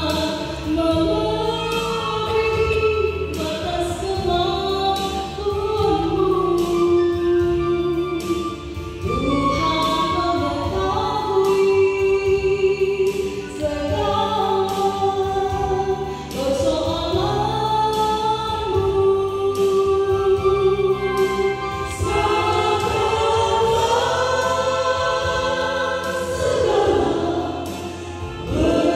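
A women's vocal group singing an Indonesian gospel song in harmony into handheld microphones, amplified through a PA, over an instrumental accompaniment of low held chords.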